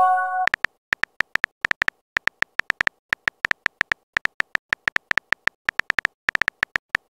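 Phone keyboard typing sound effect: rapid clicks, about five a second with short pauses, as a text message is typed. It opens with the ringing tail of the chat app's message-sent chime.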